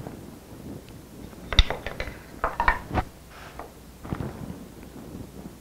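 Scattered light clicks and taps of a metal square being handled and set against the edge of a plywood board, the sharpest click about one and a half seconds in.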